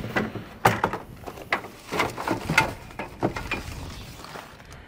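Truck grille inserts being set into a cardboard box: a string of light knocks and rustles.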